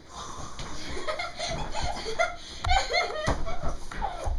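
A person laughing in short, choppy bursts, starting quietly and quickly getting louder.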